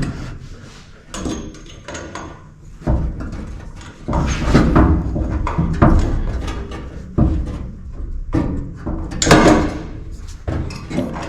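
Irregular knocks, clicks and rattles of metal hardware being handled and worked by hand as a hose clamp is bent and fitted around the roll bar.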